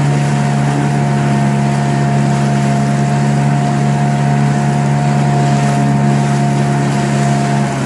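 Boat motor running at a steady speed, holding one even pitch.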